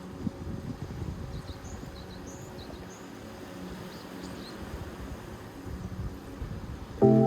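Wind and sea rumbling on the microphone, with a few faint high chirps, then a loud synthesizer chord, from a Korg Volca FM, cuts in suddenly near the end.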